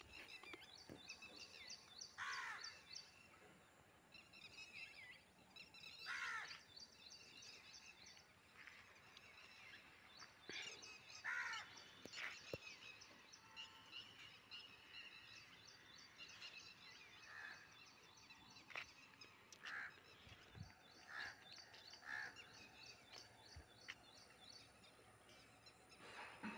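Faint outdoor birdsong: a few louder calls that fall in pitch, spaced several seconds apart, over a fast, high chirping that comes and goes.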